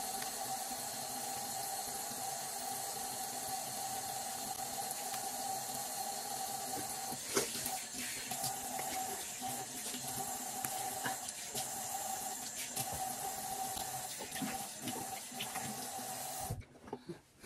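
Bathroom sink tap running steadily with a faint steady whine in the flow, the stream broken up now and then by splashes as the face is rinsed of cleanser. The water cuts off abruptly about a second before the end.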